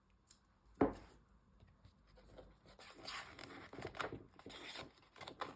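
Scissors trimming the end of a strip of washi tape on a journal page: a sharp snip about a second in, then a few seconds of scratchy cutting and rubbing sounds.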